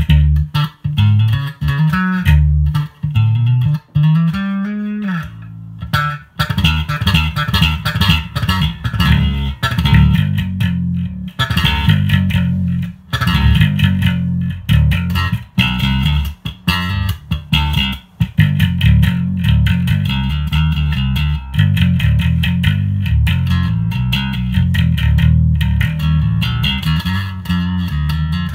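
Ibanez ATK100 electric bass played solo: a busy run of fast plucked notes with sharp, clicky attacks. About four seconds in, one note slides up and back down.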